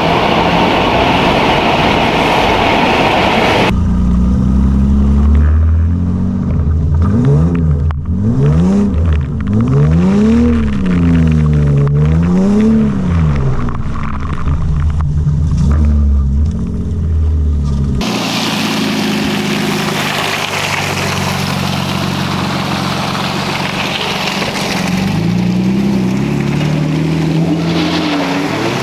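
BMW 328i straight-six engine revving up and down over and over while the kart drifts, its pitch rising and falling every second or two over a steady rushing noise. The sound changes abruptly twice, about four and eighteen seconds in.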